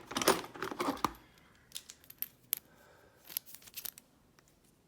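Small metal lock parts and tools being handled: a short burst of scraping and rattling, then a scatter of light, sharp clicks.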